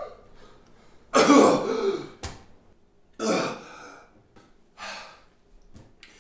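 A choking man coughing and clearing his throat in three separate fits, the first a little over a second in and the loudest, the last the weakest. A sharp click comes just after the first fit.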